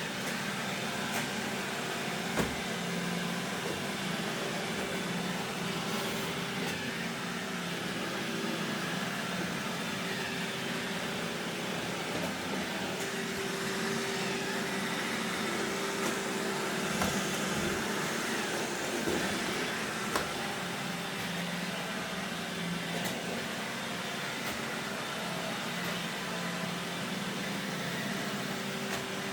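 Roomba robot vacuum running steadily, a constant motor hum with brush and suction noise, with a few brief light knocks.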